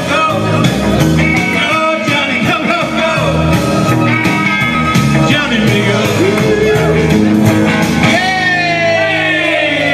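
Live rock band playing, with men singing and electric guitar; a long held note slides downward near the end.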